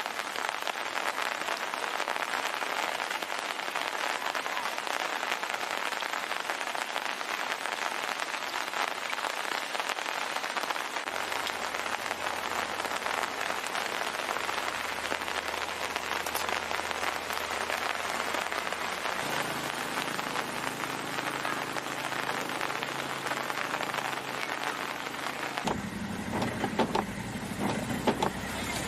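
Heavy rain falling steadily, a dense even hiss. A low engine hum comes in partway through and grows louder in steps toward the end, with some knocks near the end.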